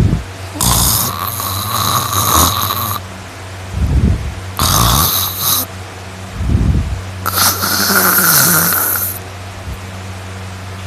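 Loud human snoring: three snores, each a low rattling snort followed by a long hissing breath, over a steady low hum.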